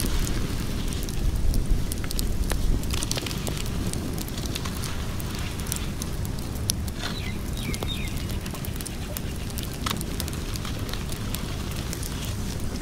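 Wood fire crackling, with scattered sharp pops and snaps over a low steady rumble of burning.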